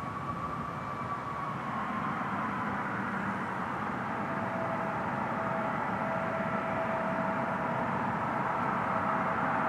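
Twin rear-mounted turbofan engines of a regional jet at taxi power: a steady rumble with a high whine, slowly getting louder as the jet comes closer. A second, lower steady whine joins about four seconds in.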